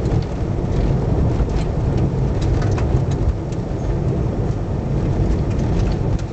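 Car driving on a gravel road, heard from inside the cabin: a steady low rumble of tyres on gravel, with scattered ticks of loose stones hitting the car.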